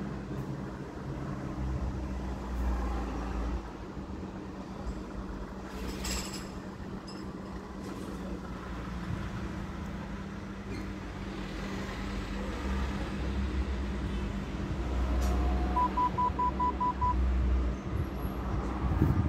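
Steady low vehicle hum in a car cabin. A quick run of about seven short, evenly spaced electronic beeps comes about three-quarters of the way through, and a single click sounds about six seconds in.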